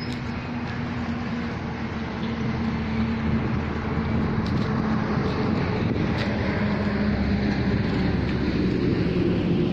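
Road traffic running steadily, with the low hum of a vehicle engine under it; it grows a little louder about halfway through.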